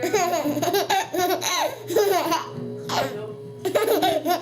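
Child laughing in repeated high-pitched bursts.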